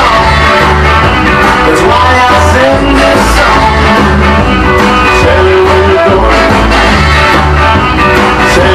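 Rockabilly record playing loud: a singer over guitar, drums and a bass line that moves in steps.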